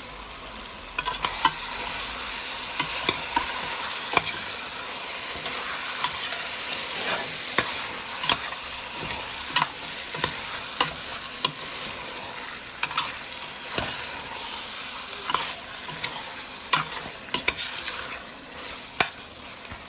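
Curry-seasoned chicken wings sizzling in a pot on high heat, the hiss coming up about a second in. A spoon stirs them, clacking sharply against the pot many times.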